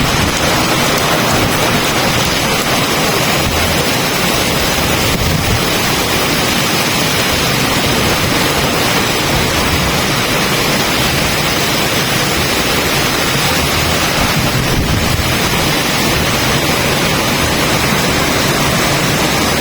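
Strong storm wind blowing hard and buffeting the microphone: a loud, steady rush of noise with gusty low rumbles from the wind hitting the mic.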